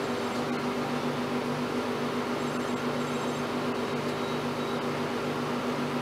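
A steady mechanical hum, like a fan or air-handling unit, with a lower tone that cuts in and out.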